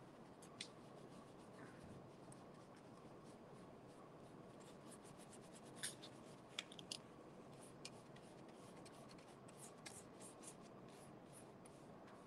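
Faint scratching and ticking of a paintbrush dabbing and stroking acrylic paint onto corrugated cardboard. The ticks come thicker from about halfway through, with a few sharper ones a little after the middle, over a low steady room hiss.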